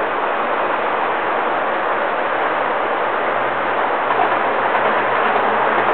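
O scale model streamliner passenger train rolling along the layout's track: a steady rushing rumble of wheels on rail that grows slightly louder as the train draws near.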